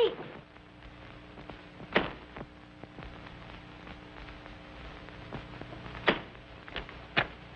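A door and its sliding bolt being worked: a sharp click about two seconds in and a few more near the end, over the steady hum and hiss of an old optical film soundtrack.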